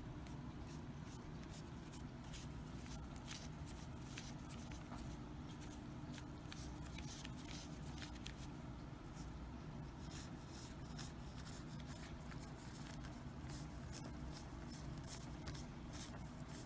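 Thin plastic shopping bag crinkling and rustling in many short crackles as a cat pushes its head into it and moves about, over a faint steady low hum.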